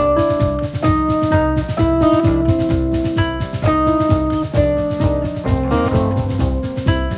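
Background music with a steady drum beat, sustained piano-like chords and a bass line.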